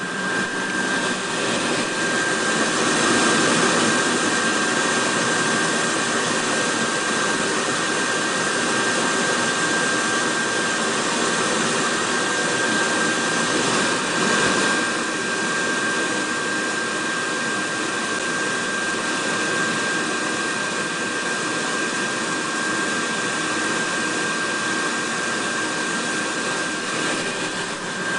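Steady rushing noise with a constant high-pitched whine running through it, from an induction cooking setup in operation.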